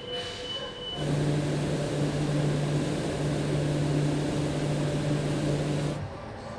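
A machine running with a steady low hum and a hiss over it, starting abruptly about a second in and cutting off abruptly near the end.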